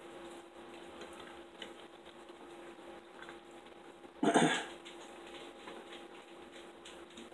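Faint clinks and scrapes of a knife and fork on a dinner plate over a low steady hum, with one short loud noise a little over four seconds in.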